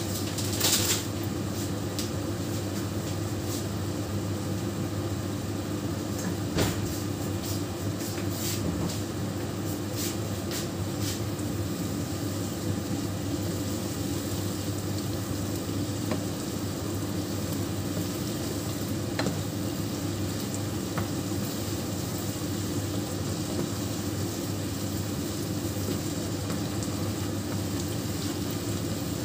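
Shredded cabbage, carrot and onion sizzling in a hot frying pan while being stirred and tossed with a wooden spatula, with sharp scrapes and knocks of the spatula against the pan, the loudest about a second in and a cluster a few seconds later. A steady low hum runs underneath.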